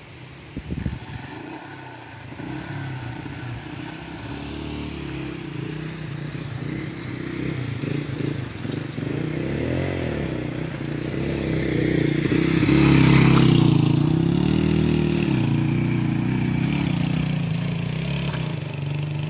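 Vehicle engine running on a rough, rocky dirt track, its revs rising and falling again and again, with some clattering. It grows louder to a peak about two-thirds of the way through, then eases off. A few sharp knocks come about a second in.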